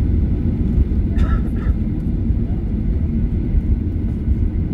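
Steady low rumble of a Boeing 737-800 airliner, its CFM56-7B turbofan engines running.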